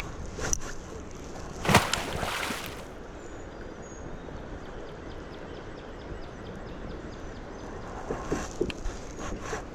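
Steady rush of river water and wind around a kayak, with a sharp knock about half a second in, a loud knock and a hissing rush of about a second near two seconds in, and a few clicks and knocks near the end.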